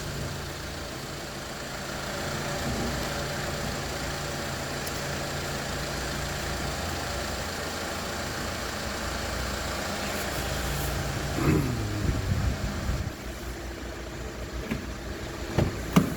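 Chevrolet Malibu's engine idling steadily after a remote start, then going quiet about thirteen seconds in. A few short clicks follow near the end.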